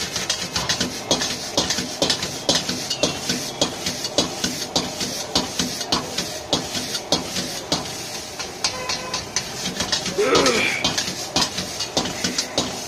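Metal spatula and ladle clanking and scraping against an iron wok in quick repeated strokes as noodles are tossed over a high gas flame, with a steady hiss of frying. A brief voice cuts in about ten seconds in.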